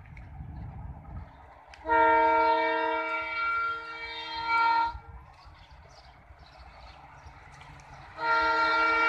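Air horn of a WDP4D diesel locomotive sounding a chord of several tones. One blast of about three seconds starts about two seconds in, and a second long blast starts near the end.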